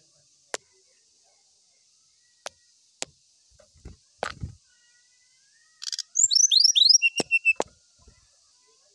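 Brown-chested jungle flycatcher in its cage: a few sharp ticks and knocks as it hops about the perch and bars, then about six seconds in a quick run of falling chirps ending in a short, even trill.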